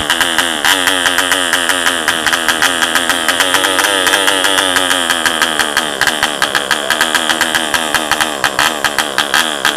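M.E. Heron 1 cc model diesel engine running fast with a rapid crackling exhaust beat. The beat turns rougher and more uneven near the end.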